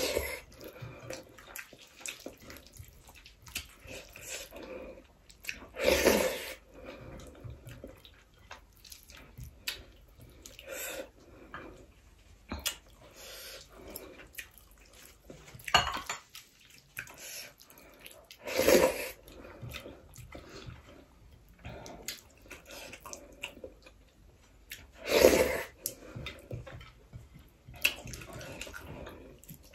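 Close-up eating sounds of rice and dal eaten by hand: wet chewing and lip smacking, with fingers squishing rice on a plate. Four louder short mouth sounds stand out, spread through.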